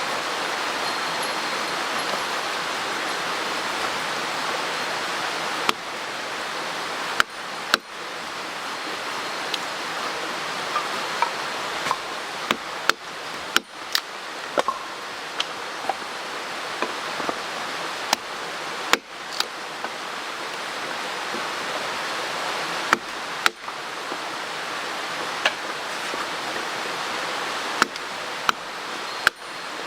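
Mountain stream water rushing steadily, with scattered sharp clicks and pops over it.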